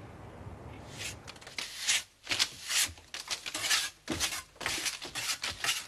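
A hand tool scraping over a patched plaster wall in a quick, irregular run of short strokes, two or three a second, starting about a second in.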